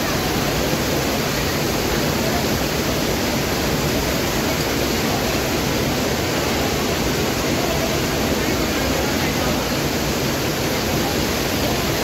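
Waterfall spilling and splashing over a rock face: a steady, unbroken rush of water.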